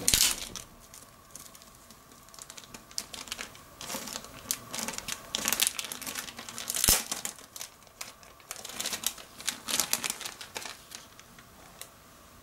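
Thin plastic parts bag of a plastic model kit crinkling and crackling in irregular bursts as a hand rummages in it and handles the sprues inside, with one sharp click about seven seconds in.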